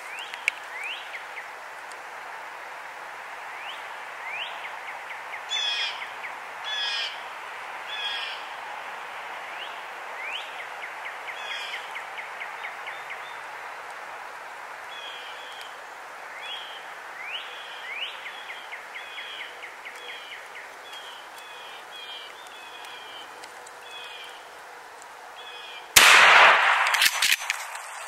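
Songbirds chirping and calling throughout, with three louder calls about six to eight seconds in; near the end a single loud gunshot cracks out and echoes for a second or so.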